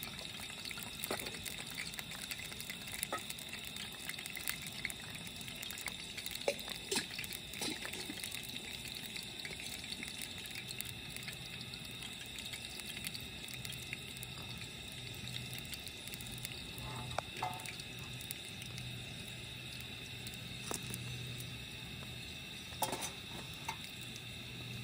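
Steady hiss of cooking on a portable gas stove, with scattered clicks of brass utensils being handled.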